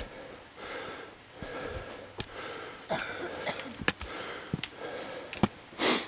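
A hiker's heavy breathing close to the microphone, a breath about every second, with short sharp clicks of steps on the trail and a loud rush of breath just before the end.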